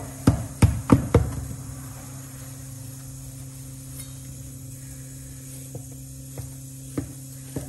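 A knife knocking against a metal baking tray while a soft sheet cake is cut into strips: four sharp clicks in the first second or so, then a few fainter ones near the end. A steady low hum runs underneath.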